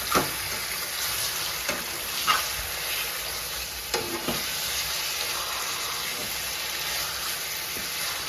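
Marinated chicken sizzling in hot oil in a pan as it is stirred, with the stirring utensil scraping and knocking against the pan several times, loudest in the first few seconds.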